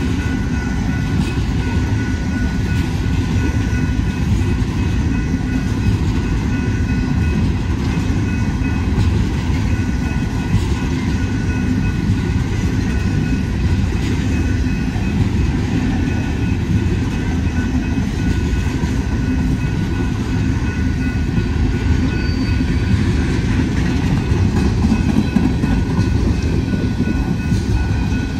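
Coal gondolas of a BNSF freight train rolling steadily past at close range: a continuous rumble and rattle of steel wheels on rail, with faint steady high-pitched tones running over it.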